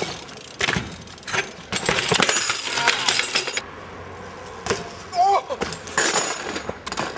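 A BMX bike and rider crashing on concrete: a dense run of metal clanks and knocks against the pavement, then after a lull a short shout and another cluster of impacts near the end.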